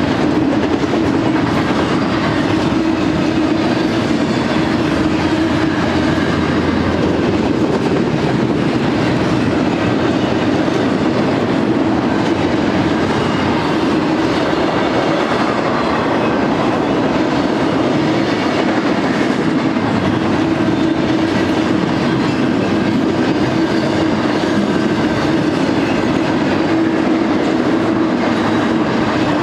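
Loud, steady rolling noise of the steel wheels of a BNSF double-stack intermodal freight train passing close by, as its container cars go past at speed.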